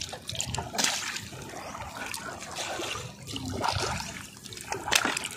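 Shallow water splashing and trickling, disturbed unevenly, with louder splashes about a second in and again near the end.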